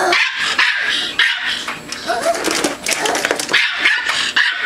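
Miniature Pinschers barking and yipping in quick, repeated short barks.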